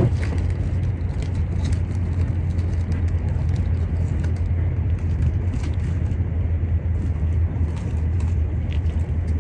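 Steady low rumble of a moving passenger train heard from inside the carriage, with a few faint light ticks.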